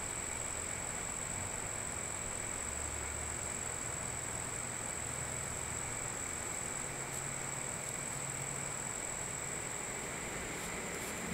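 Steady outdoor garden ambience dominated by a continuous high, even insect chorus, with a faint low rumble coming and going underneath.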